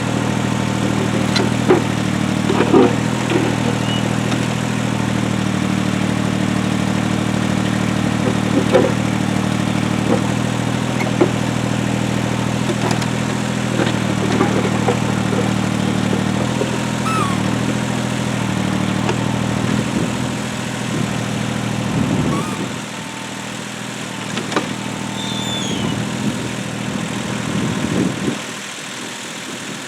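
Tractor engine running steadily, with scattered short knocks and clanks over it. The engine sound thins out about two thirds of the way in and drops again near the end.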